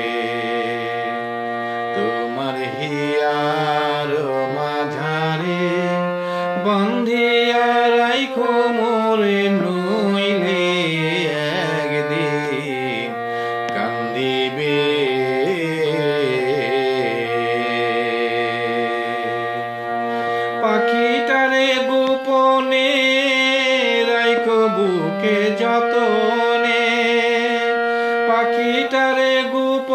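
Music of a Bengali folk song: a melody gliding and bending between notes over a steady low drone, which drops out about two-thirds of the way through as the accompaniment changes.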